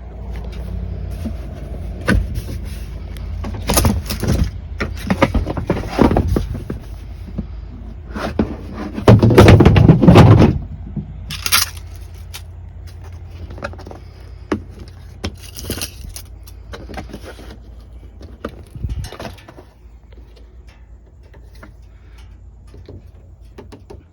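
Clunks, knocks and rattles of the Honda Pioneer 700 UTV's seat being unlatched and lifted off, loudest about nine to ten seconds in. A low steady rumble runs underneath and stops a few seconds before the end.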